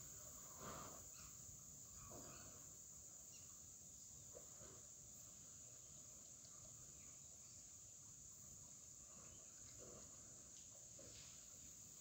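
Faint, steady high-pitched chirring of insects such as crickets or cicadas, unbroken throughout.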